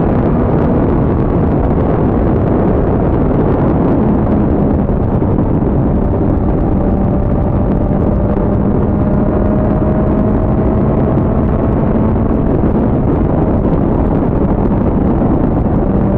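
Motorcycle engine running steadily at highway cruising speed, under heavy wind rush.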